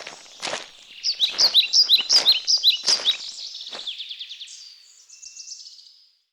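A wild bird singing: a rapid run of sharp, falling chirps, then a fading trill that stops about six seconds in. A few short scuffs sound underneath the chirps.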